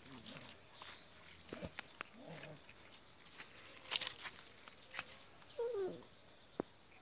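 Young puppies giving a few short, faint whines that bend in pitch, the clearest one near six seconds in, among scattered scuffs and rustles on dry ground; the loudest sound is a brief scratchy rustle about four seconds in.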